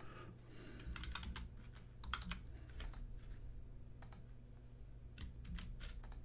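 Computer keyboard typing: keys tapped in short, scattered runs as a word is typed, over a faint steady low hum.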